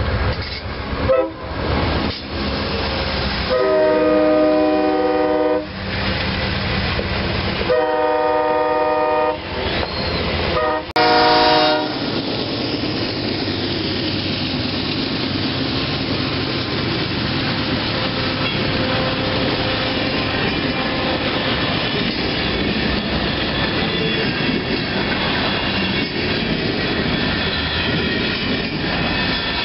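Diesel freight locomotive's air horn sounding a brief toot, two long blasts and a short one. Then the train passes with the steady noise of its wheels and cars rolling by.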